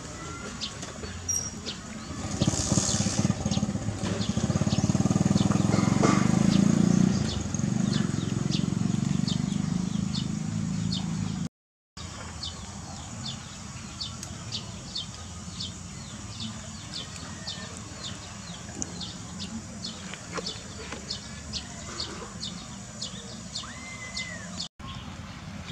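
Outdoor ambience with short high chirps repeating about twice a second. In the first third a louder low rumble of a passing vehicle swells and fades away.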